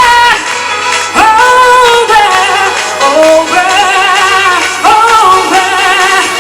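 A woman singing a pop dance song over music, holding long notes in separate phrases, several with a wavering vibrato.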